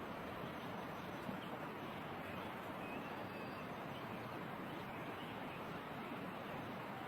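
Steady rush of flowing stream water, with a few faint bird chirps over it.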